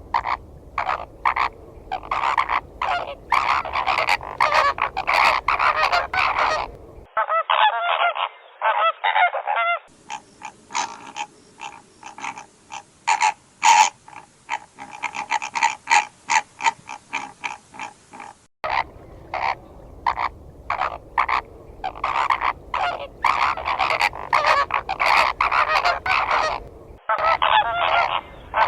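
A flock of flamingos honking: a dense chorus of short, overlapping goose-like calls. The sound changes abruptly a few times as one recording cuts to another.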